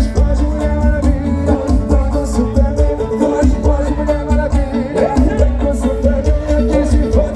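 Loud music with a pulsing bass beat and singing, played over a large carnival sound system.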